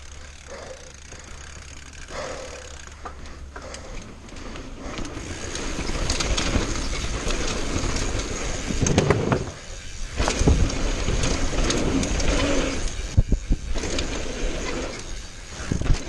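Mountain bike riding down a dirt trail: tyres rolling on dirt and the bike rattling, with several sharp knocks as it goes over bumps. It gets louder and rougher about five seconds in.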